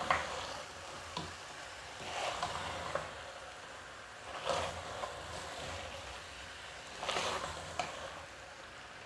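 Mutton pieces being stirred with a wooden spatula in thick masala in a pressure cooker on high flame: a low sizzle of sautéing meat, with wet scraping swishes of the spatula every two to three seconds.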